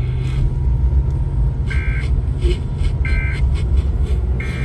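Three short bursts of Emergency Alert System digital data tones, the end-of-message code that closes the warning, sent about a second and a quarter apart over a steady low rumble.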